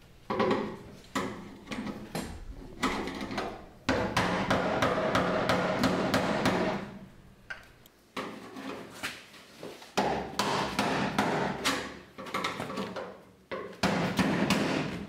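Hammer tapping a screwdriver against the steel retainer ring of a fuel tank sending unit, driving the ring clockwise into its locked position. Irregular light metallic taps, with the sheet-steel tank ringing on after some strikes and a short lull about halfway through.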